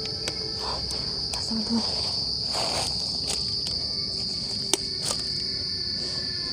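Steady, high-pitched chorus of night insects in a forest, one unbroken trill. A brief rustle comes about two and a half seconds in, and a few sharp clicks follow, the loudest near the five-second mark.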